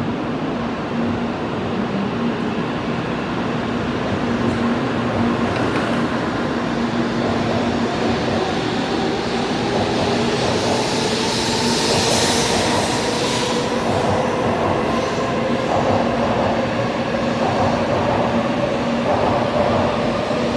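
Shinkansen N700A train pulling out past the platform, gathering speed. Its motors give a whine that rises in pitch from about a third of the way in, over a steady rumble and hum that slowly grows louder.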